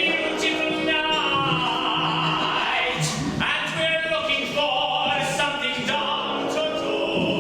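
Music with a sung vocal line over a sustained accompaniment.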